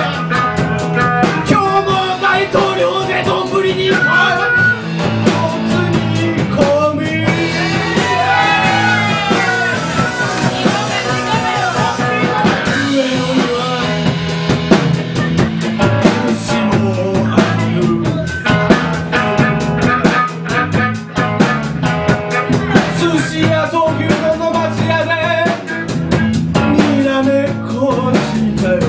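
Live blues-rock band playing: electric guitars, bass and a drum kit keep a steady groove while a man sings at the microphone.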